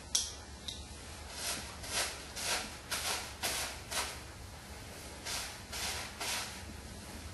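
A comb backcombing (teasing) a ponytail: a run of short rasping strokes through the hair, about two a second, with a short break about four seconds in.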